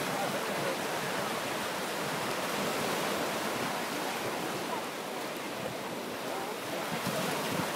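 Steady wash of small waves breaking on a sandy beach, an even hiss without distinct breaks.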